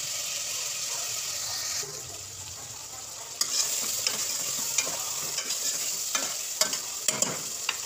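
Tomatoes and onions sizzling in hot oil in an aluminium pot, then a metal spoon stirring them and knocking against the pot's sides in short sharp clinks from about three and a half seconds in.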